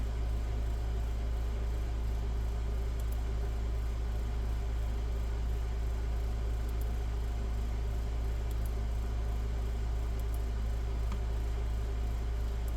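Steady low hum over even background hiss, with a few faint, scattered clicks.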